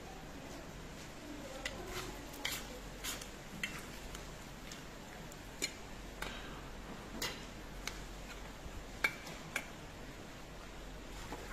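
Metal skimmer scraping and clinking against a cast-iron kazan as plov is scooped out: irregular sharp clicks, about a dozen in all, the loudest about nine seconds in.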